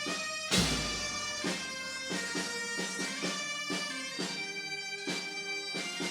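Bagpipes playing a slow melody over their steady drones, with a single thump about half a second in.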